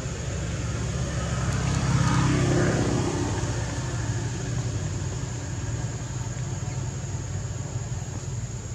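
Low steady engine-like rumble that swells to its loudest for about a second, roughly two seconds in, over a thin steady high hiss.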